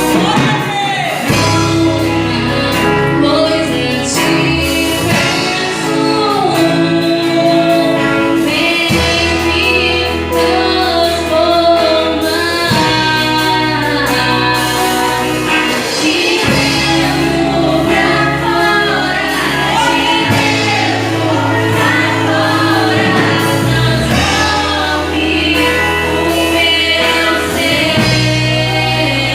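Gospel worship song with group singing over a band, the bass moving in long held notes that change every few seconds.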